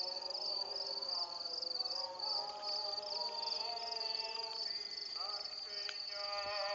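Crickets chirping in a steady, even pulse, with voices singing long held notes alongside.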